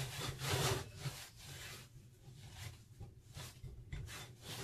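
Hands kneading bread dough in a ceramic bowl: soft rubbing and pressing strokes, louder in the first second and fainter after.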